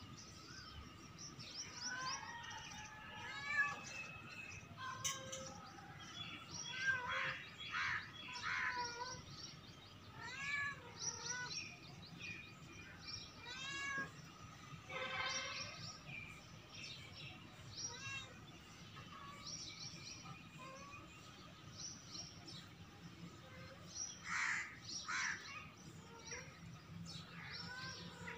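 A kitten meowing now and then, with birds chirping and calling throughout.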